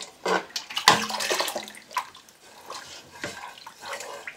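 Liquid poured from a glass measuring cup into a steel pot of sorrel drink, splashing irregularly, with several short knocks of the cup and utensils against the pot.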